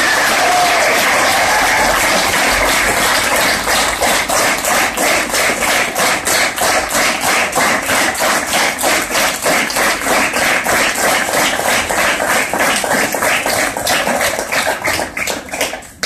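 Audience applauding. After a few seconds the applause settles into rhythmic clapping in unison, about two to three claps a second, and fades away near the end.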